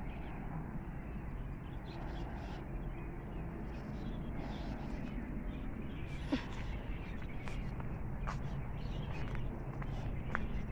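Outdoor park ambience: a steady low background rumble with scattered short bird calls, the clearest about six seconds in.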